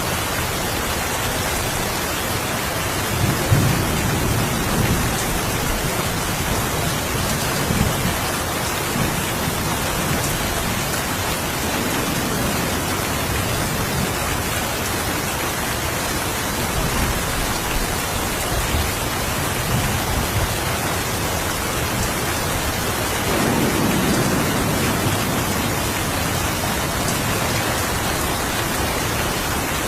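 Steady rain falling as an even hiss, with low rumbles of thunder rolling in several times. The strongest rumbles come about three to five seconds in and again around twenty-four seconds in.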